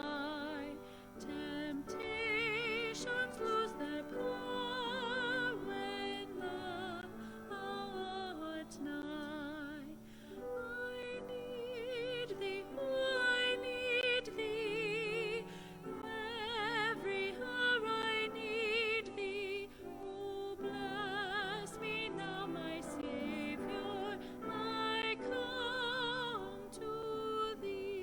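Classically trained solo voice singing slow, sustained phrases with a wide vibrato over a held accompaniment, a sacred solo in operatic style.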